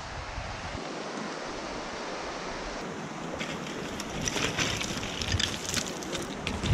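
A creek rushing steadily. From about halfway, boots crunch and clatter on loose shale scree, with many sharp clicks of sliding stones, ending in a louder knock.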